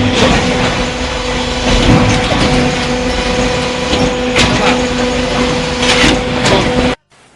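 Fine-stone concrete pump running: a loud, steady machine drone with a constant hum and occasional sharp knocks. It cuts off suddenly near the end.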